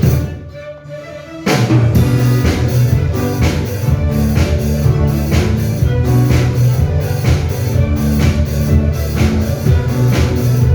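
Instrumental band music with a drum kit keeping a steady beat. The sound thins out briefly right at the start, then the full band comes back in about a second and a half in.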